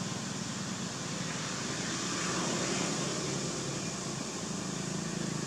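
Steady outdoor background noise: an even low rumble with hiss and no distinct events.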